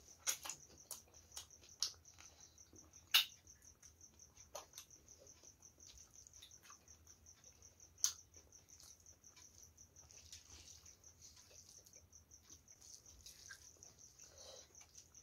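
Faint close-up eating sounds: chewing and lip smacks with a few sharp wet clicks, the loudest about three seconds in and again about eight seconds in, and fingers mixing rice with curry near the end. A steady high-pitched pulsing trill runs underneath.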